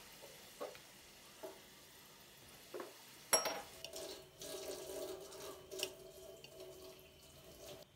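A few light kitchen knocks, then a sharp clack and water running from a tap for about four seconds before it cuts off.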